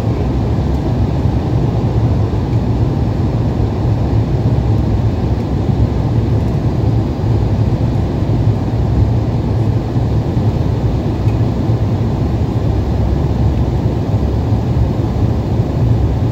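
Steady cabin noise inside an Embraer 170 airliner in flight: the low, even drone of its CF34 turbofan engines and the airflow over the fuselage, with no breaks or changes.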